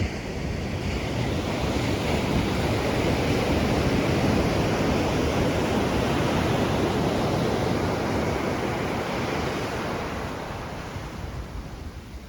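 Ocean surf breaking on the shore: one long wash of waves that swells over the first couple of seconds, holds, and fades away near the end.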